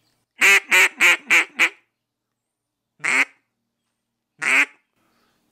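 Rick Hahne duck call blown by mouth in a greeting call: a quick run of five cut-off quack notes, then two single quacks about a second and a half apart, the cadence slowed down.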